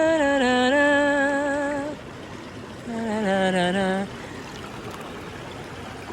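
A woman humming a wordless tune in long, wavering held notes: one phrase ending about two seconds in, then a lower one about three seconds in. A stream runs steadily underneath and is heard alone after the humming stops.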